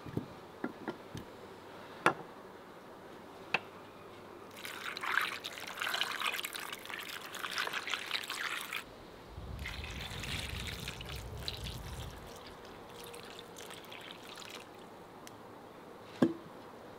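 Peeled potatoes set down into a ceramic bowl with a few sharp knocks, then water poured from a metal jug over them, splashing for about five seconds before running on more softly. A single sharp knock comes near the end.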